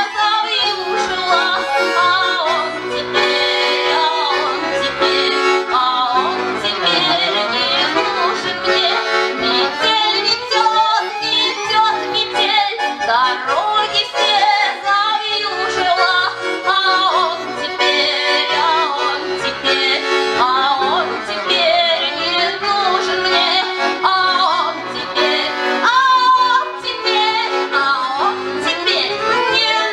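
Accordion-led music playing an instrumental passage of a song, with no singing.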